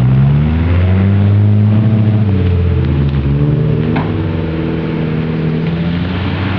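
Off-road vehicle engine running hard under load, its revs changing in steps as it climbs, with a short sharp knock about four seconds in.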